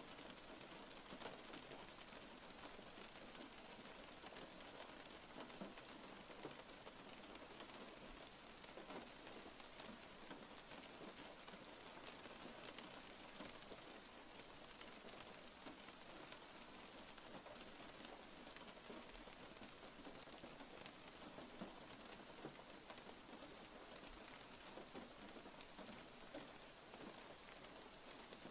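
Faint, steady rain: an even hiss with many small scattered drop ticks.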